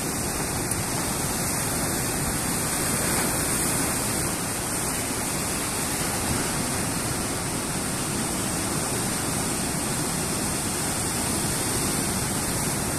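Sea surf breaking and washing over a rocky shore: a steady rush of white water with no distinct breaks between waves.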